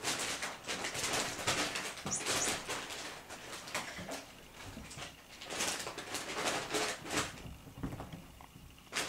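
Ragdoll kittens wrestling and scrambling on a fabric sofa: irregular bursts of scuffling and rustling from paws and bodies on the upholstery, busiest in the first few seconds and again past the middle.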